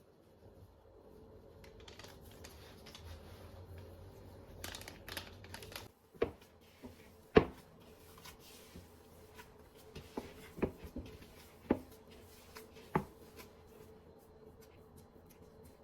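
Kitchen handling sounds while making cookie dough: soft rustling, then about six sharp knocks or taps of utensils or dishes, spaced a second or so apart.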